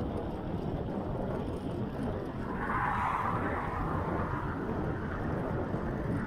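Wind noise on a handlebar-mounted camera's microphone while cycling, with a car passing about three seconds in, its tyre hiss swelling and fading.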